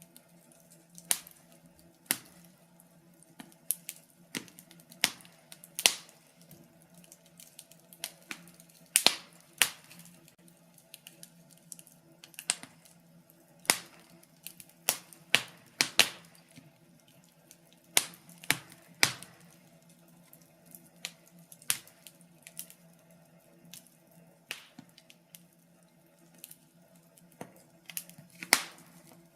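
Burning wood fire crackling, with irregular sharp pops and snaps of uneven strength over a faint steady hum.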